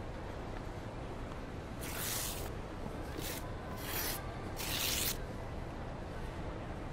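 A sheet of paper being torn, in four short scratchy rips over about three seconds.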